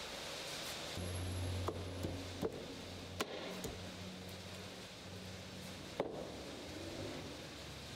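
A few light wooden knocks and taps, about six, spaced irregularly, as a glued wooden strip is handled and fitted against a board on a workbench, with a faint low hum underneath.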